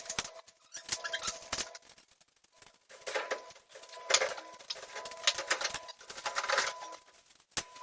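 Irregular bursts of rapid clicking and clattering, like hard objects tapping and knocking, over a faint steady tone.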